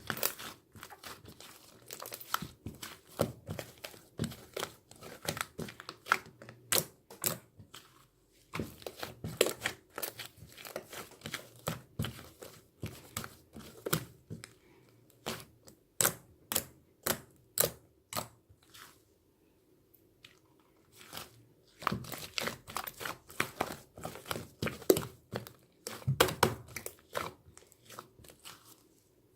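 Crinkling and crunching: clusters of sharp, irregular crackles, with brief pauses about nine seconds and twenty seconds in.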